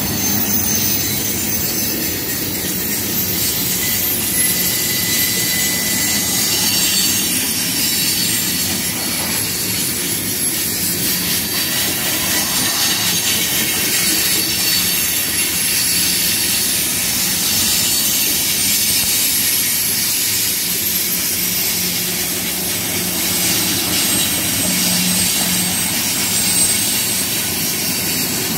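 Two freight trains rolling past each other on adjacent tracks, a close double-stack intermodal train and a manifest of hoppers and tank cars: a steady rumble of cars on the rails, with several thin, high wheel-squeal tones over it.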